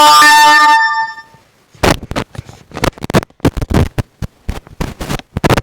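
A loud alert tone sounds abruptly, a horn-like blast with many overtones that holds for under a second and dies away. From about two seconds in, a run of choppy, irregular bursts of noise follows, like broken-up static.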